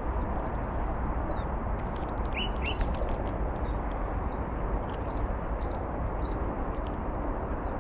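Small birds chirping: short, high, downward-sliding chirps, about one a second, over a steady background hiss.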